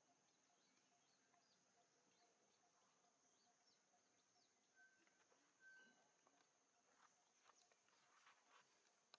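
Near silence: faint outdoor ambience with a steady high hiss and scattered short, faint high chirps, plus a few soft clicks in the last couple of seconds.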